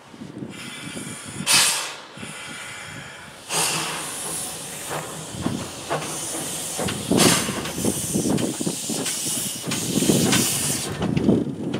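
Small steam tank locomotive letting off steam in loud hissing bursts, four in all, as it moves off slowly. Uneven low puffs run underneath.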